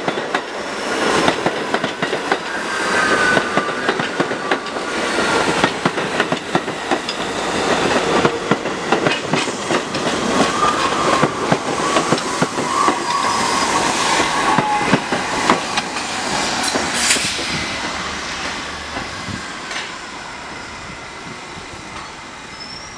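R68 subway train running in on the express track, its wheels clicking over the rail joints, with a high whine sliding down in pitch as it slows. The sound fades over the last few seconds as the train comes to a stop at the platform.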